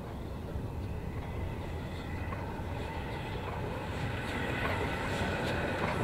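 LNER A3 Pacific steam locomotive 60103 Flying Scotsman running with a train of coaches and approaching: a low rumble that grows steadily louder, with sharp clicks from the wheels and running gear coming in over the last second and a half.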